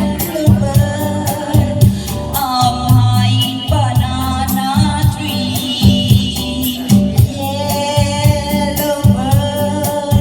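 A song: a singing voice holding long, gliding notes over a steady percussion beat and bass.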